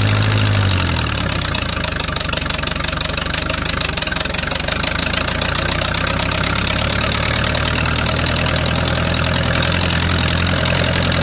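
Case 430 tractor engine running as the tractor drives in fourth gear. Its note drops about a second in, then runs steadily.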